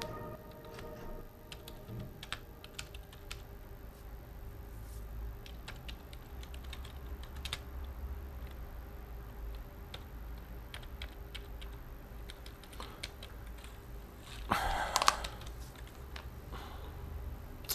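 Typing on a computer keyboard: irregular, scattered keystrokes over a low steady room hum. There is one brief, louder noise about fifteen seconds in.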